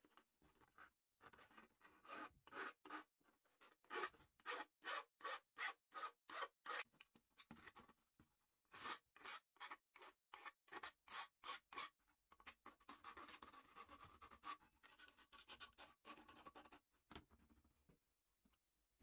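Hand file scraping across the metal body of an old bicycle lamp, in short even strokes about two a second with a brief pause partway. Toward the end the strokes give way to a softer, more continuous rubbing.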